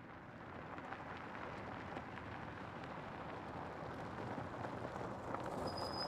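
Minibus approaching on a gravel road: a rumbling noise of engine and tyres on gravel that grows gradually louder.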